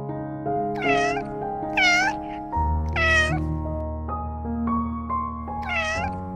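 An animal's short, high calls, four of them, each rising and then falling in pitch, over calm background music.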